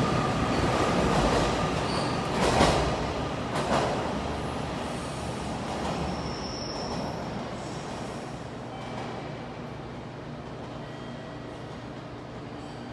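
JR Kyushu 813 series electric train pulling out and running away: loud wheel and running noise that fades steadily, with a high steady tone in the first second and two sharp clanks about two and a half and three and a half seconds in.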